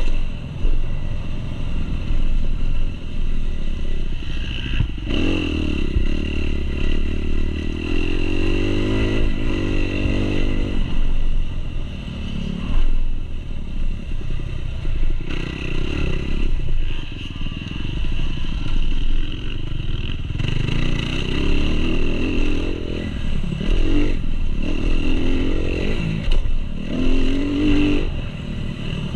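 2019 Kawasaki KX250's four-stroke single-cylinder engine heard up close from the bike, revving up and falling back again and again as the rider works the throttle and gears around a motocross track, with wind on the microphone.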